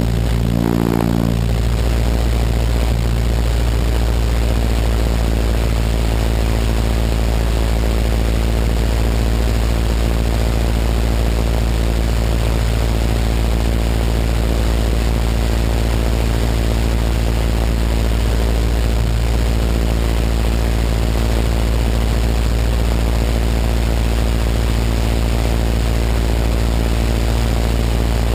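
Open-cockpit biplane in steady cruise: the piston engine and propeller drone evenly at a constant pitch, under heavy wind rush on the wing-mounted microphone.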